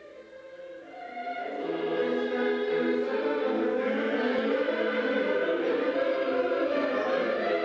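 Classical choral music with orchestra, fading in during the first two seconds and then sustained in long held chords.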